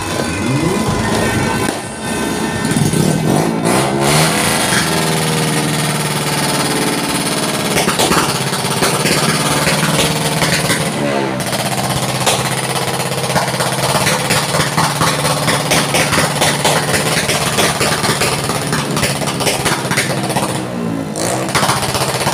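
A long string of firecrackers going off in a rapid, unbroken crackle of bangs, with an engine running underneath.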